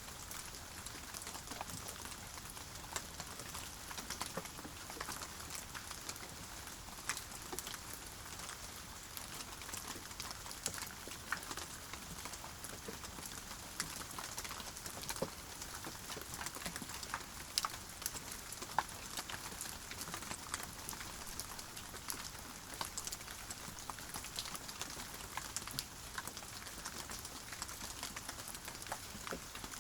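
Steady rain falling, a constant hiss with many close individual drops ticking and pattering.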